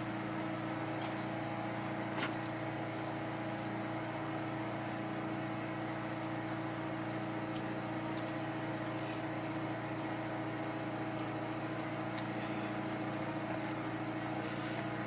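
Steady hum of an electric sump pump running at a constant pitch, pumping rainwater out of a trash can through a garden hose, with a few faint clicks.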